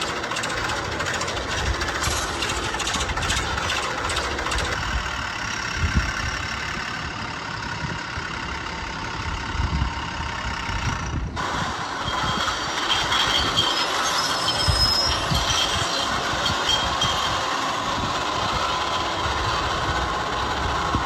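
Construction machinery engine noise running steadily, with a short break about eleven seconds in.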